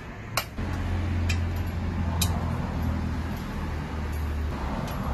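A few sharp metallic clicks and clinks of hand tools on a scooter's Akrapovič slip-on muffler as it is taken apart. Under them runs a steady low hum that starts just under a second in.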